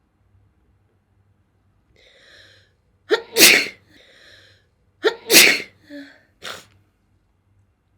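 Two sharp sneezes about two seconds apart, each preceded by a faint intake, then two shorter, smaller sneezes or snorts.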